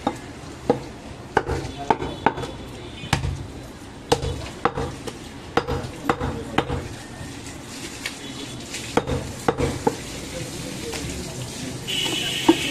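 Butcher's steel knife clicking and knocking against a wooden chopping block while trimming fat and skin from a goat leg: irregular sharp taps, a few a second, with a short pause midway.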